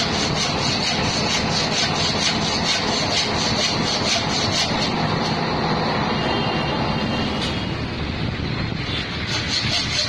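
Metal lathe running with a hand hacksaw cutting through the workpiece turning in its chuck: a rhythmic rasp of saw strokes, about three a second, over the steady noise of the machine. The sawing grows weaker after about five seconds.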